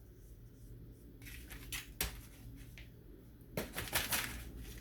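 Parchment paper crinkling and rustling in short spells as a thin pie crust is eased loose on it, with a sharp click about two seconds in.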